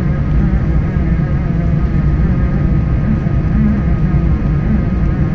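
Aeroplane noise during landing: a steady, loud rumble with a few faint whining tones above it.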